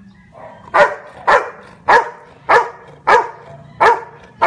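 Labrador retriever barking a steady run of single barks, about seven, evenly spaced at roughly one and a half a second, counting out on cue the number of fingers held up to it.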